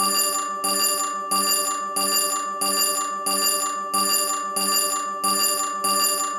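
Countdown timer's alarm going off at zero: a loud bell-like ring struck over and over, about every two-thirds of a second, with a steady high tone held underneath.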